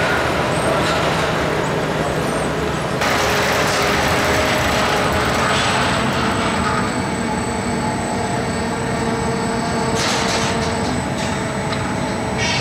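Sheet-metal shop machinery running, a steady machine hum made of several tones. A hiss rises about three seconds in and eases off a few seconds later, and comes back briefly near the end.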